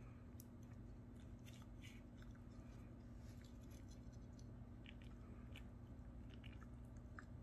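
Near silence: a low steady hum with faint, scattered small clicks and light scrapes throughout.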